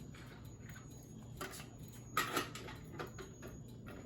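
A few light knocks and clicks of objects being handled, the loudest about two seconds in, over a faint steady hum.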